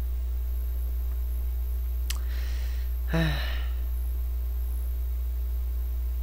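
A man sighs briefly about three seconds in, just after a small click, over a steady low hum.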